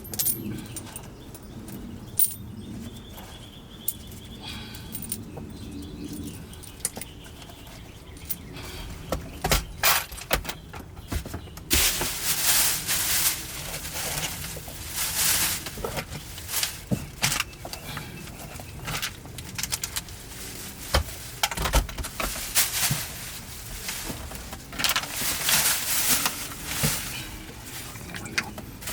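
Clicking and rattling of handling inside a car interior. About twelve seconds in, a vacuum cleaner starts with a sudden loud rush of suction, and debris clicks and rattles as it is picked up from the carpet.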